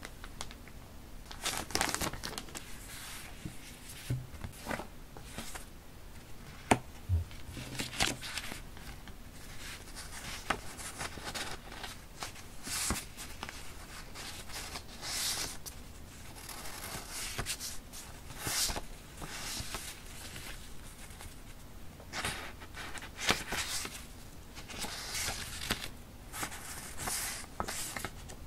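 Sheets of vintage-style coffee-tinted background paper rustling and crinkling as they are handled, fanned and shuffled in the hands, with an occasional sharp click.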